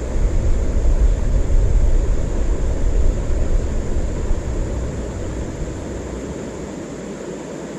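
Wind rumbling on the camera's microphone, a low, uneven buffeting that eases off over the last couple of seconds.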